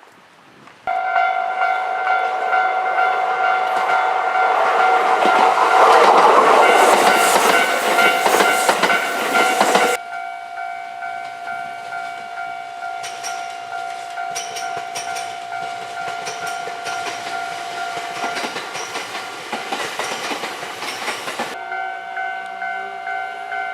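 Japanese level-crossing warning bell ringing in steady repeated tones, switching on suddenly about a second in. A train passes with rail and wheel noise that swells to its loudest mid-way and cuts off abruptly about ten seconds in. The bell carries on, its tone changing near the end as a rising whine comes in.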